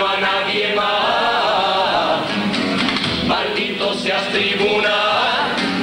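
Cádiz carnival comparsa: a chorus of male voices singing together in harmony, accompanied by guitars.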